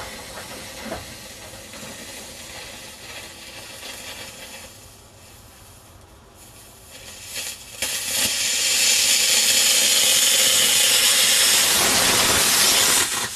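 Small homemade rocket motor burning: a sparking, crackling hiss at first that dies down around five seconds in, then a loud, steady jet hiss from about eight seconds in that cuts off suddenly near the end.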